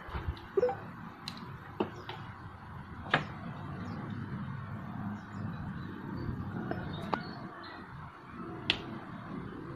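Scattered sharp small clicks and taps from the soldering iron and hands working a capacitor's leads loose on an amplifier circuit board, about six in all, over a steady low background noise.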